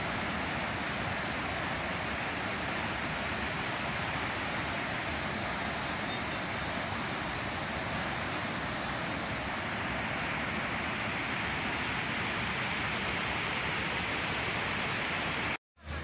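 Steady rush of flowing water, an even hiss with no breaks; it cuts out abruptly about a second before the end.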